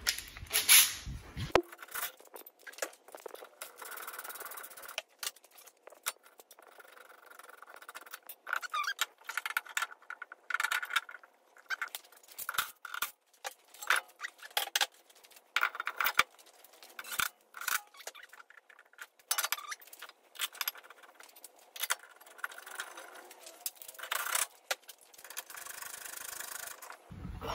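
Irregular metallic clinks, scrapes and rattles of brake parts being handled: the old rotor worked off the hub and the brake caliper fitted over the new rotor. The sound is thin, with no low end.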